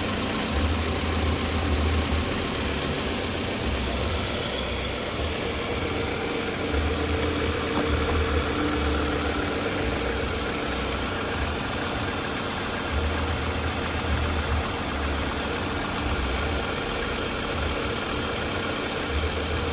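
Toyota Camry engine idling with a low throb that swells and fades unevenly every second or two, the sign of a cylinder 1 misfire (code P0301).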